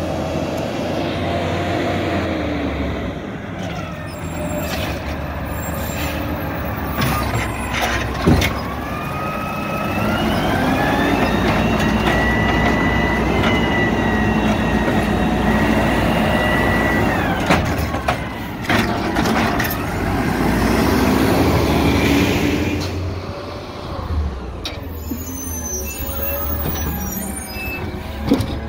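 Automated side-loader garbage truck working a curbside pickup: the diesel engine runs under load while the hydraulic pump whine rises and holds for several seconds as the arm lifts and tips a wheeled cart, with sharp knocks and bangs as the cart is grabbed, shaken and set back down.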